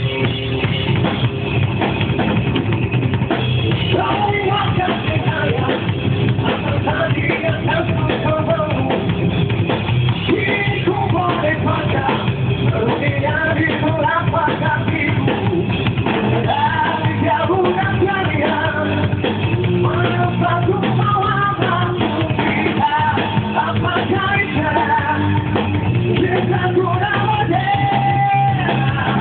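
Rock band playing live, with a drum kit, a guitar and a singer's vocals carrying the melody over the band.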